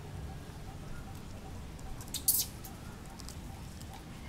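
Thin plastic cup crinkling in a long-tailed macaque's hands: a short cluster of sharp crackles about halfway through, over a low steady rumble.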